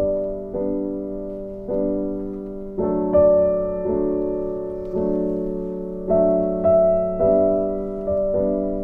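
Background piano music: soft chords struck about once a second, each ringing and fading away.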